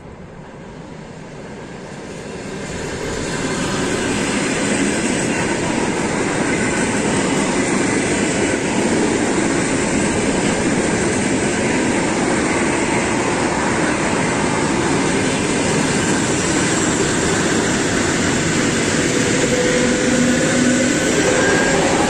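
Electric multiple-unit commuter train approaching and passing close by: wheels on rails, building up over the first few seconds and then holding steady as the carriages roll past. A faint steady whine comes in near the end.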